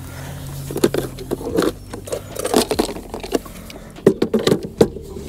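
Irregular knocks, clicks and rattles from gear being handled in a boat, coming in clusters, with the densest run about four seconds in.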